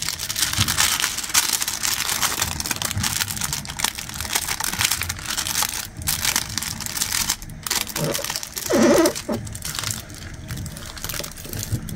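Crinkling plastic film on a diamond painting canvas, handled and smoothed by hand: continuous crackling and rustling as the folded, gluey canvas and its loose protective plastic are flattened.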